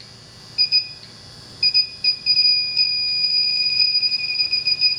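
Inficon D-TEK Select electronic refrigerant leak detector alarming with a high-pitched beep. It starts about half a second in, sounds in short bursts and fast runs, and holds a steady tone briefly near the middle. The detector is pegged by R-410A escaping from a leaking coil.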